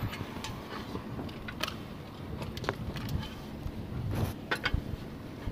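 Scattered light knocks and scrapes from work on an asphalt-shingle roof, with a cluster of them about four seconds in, over a steady low background rumble.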